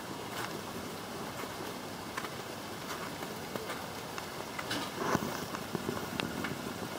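Footsteps crunching on packed snow, a step every second or so, over a steady hiss.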